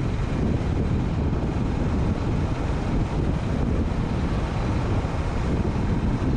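Wind buffeting the microphone of a camera on a moving bike: a steady, loud rushing noise, heaviest in the low end.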